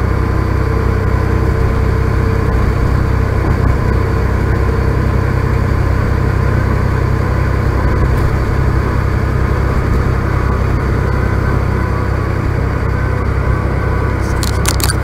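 Steady drone inside a semi-truck's cab at highway speed: the diesel engine's low hum with tyre and road noise, and a few short clicks near the end.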